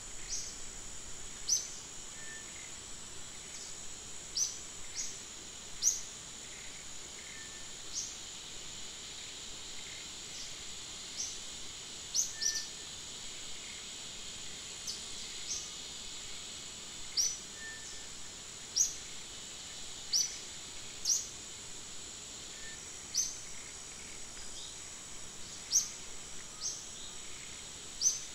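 Outdoor nature ambience: a steady high-pitched insect drone, with short, sharp bird chirps every second or two and a faint short note every few seconds.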